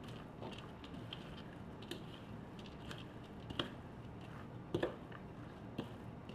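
A spoon tossing a salad of shredded cabbage, diced potato, carrot and shrimp in a bowl: soft rustling with light, irregular clicks of the spoon against the bowl, a few louder ones about three and a half, five and six seconds in.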